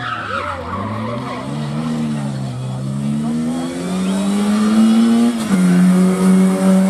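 Rally car's engine pulling hard, revs climbing and falling back with each gear change, then held high after a shift about five and a half seconds in. Brief tyre squeal in the first second.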